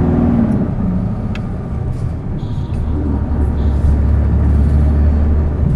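Isuzu Erga PJ-LV234L city bus heard from inside, its turbo-diesel inline-six engine running under hard driving. The engine note drops in pitch in the first second, as at a gear change, then settles into a strong, steady low drone about halfway through.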